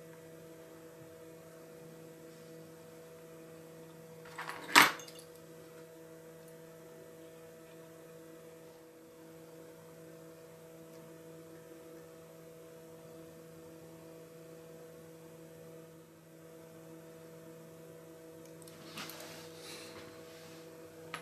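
Steady electrical hum made of several even tones, with one sharp click about five seconds in.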